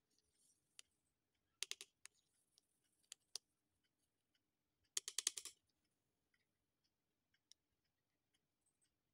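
Paintbrush clicking and tapping against a plastic paint palette while mixing paint: a few sharp clicks, with a quick rattle of clicks about two seconds in and a denser one about five seconds in.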